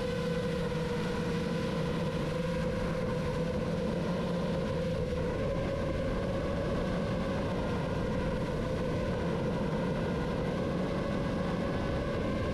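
GEPRC MOZ7 7-inch FPV quadcopter's brushless motors and propellers running, a steady whine that drifts slightly in pitch, over a hiss of rushing air.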